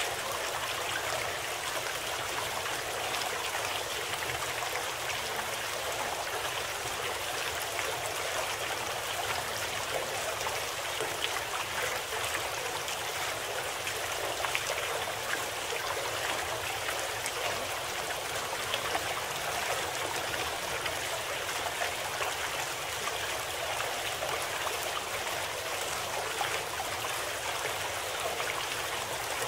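Steady running water of a babbling stream, with fine trickling and splashing and no change in level. This is a recorded nature-sound track used as the cover sound of a subliminal audio program.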